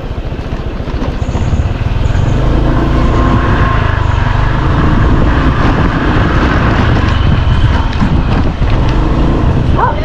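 Motorcycle engine running under way, a steady low rumble that grows louder about two seconds in.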